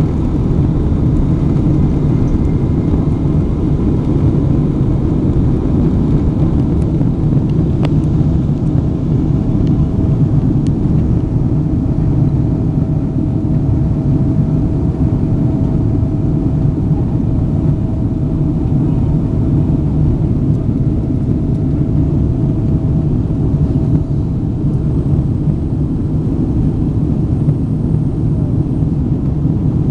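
Boeing 777 jet engines at takeoff power during the climb-out, a loud steady roar heard from inside the passenger cabin. A faint steady whine joins about nine seconds in and stops about twenty-four seconds in.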